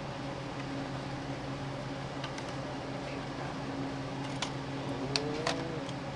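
Steady low mechanical hum, like a running shop fan, with a few sharp clicks and taps in the second half.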